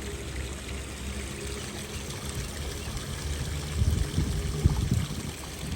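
Wind buffeting the microphone in gusts, swelling about four seconds in, with faint birdsong in the background.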